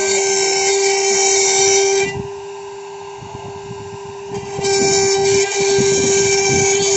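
CNC router spindle running with a steady high whine at constant pitch, along with a loud hissing cutting noise. The cutting noise drops away about two seconds in, leaving the spindle whine quieter, and returns about two and a half seconds later.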